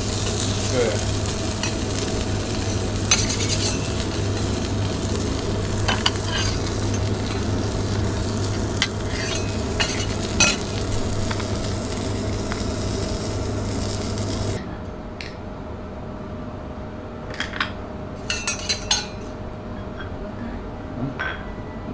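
Food sizzling on a flat steel teppanyaki griddle, with scattered scrapes and clicks of a metal spatula on the steel over a steady low hum. About two-thirds of the way through the sizzle cuts off suddenly, leaving quieter clinks of plates and cutlery.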